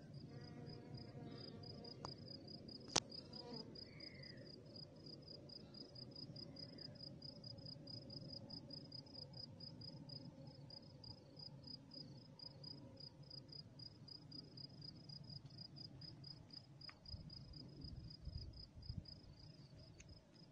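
A cricket chirping, a steady run of high, evenly spaced chirps, with one sharp click about three seconds in.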